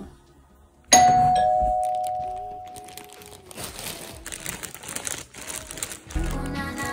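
A two-note descending doorbell-style chime rings out about a second in and fades over a couple of seconds. Scattered rustling noise follows, and background music starts near the end.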